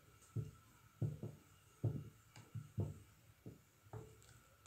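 Long wooden spoon stirring thick corn semolina porridge in a stainless steel pot: soft, irregular low thuds and slops, about two a second.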